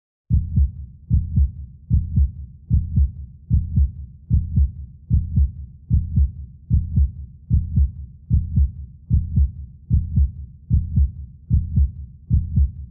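Heartbeat sound on the soundtrack: slow, steady low lub-dub thumps, about 75 beats a minute.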